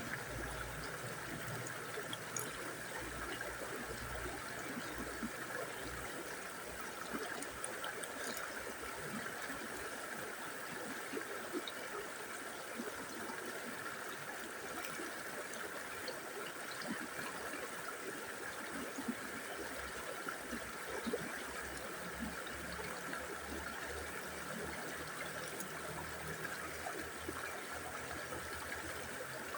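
River water flowing steadily: an even rush of moving water with occasional brief splashes.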